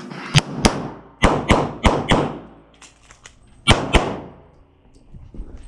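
Eight shots from a Smith & Wesson M&P Pro pistol in .40 S&W, fired as four quick pairs: three pairs in about two seconds, then a pause of about a second and a half before the last pair. Each shot rings on in the echo of an indoor range.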